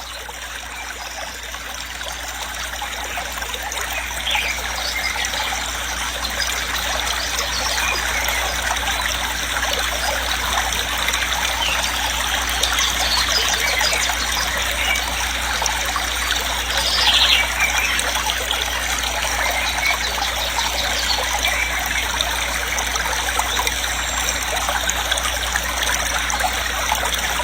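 Waterfall: a steady rush of falling water, growing louder over the first few seconds and then holding even.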